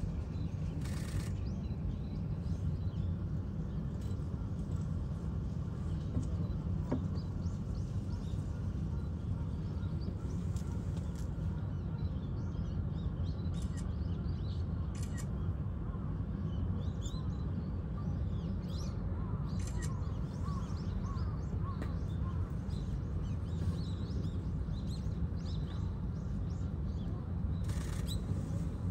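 Outdoor ambience: a steady low rumble with faint, scattered bird calls, perhaps crows, and a few brief clicks.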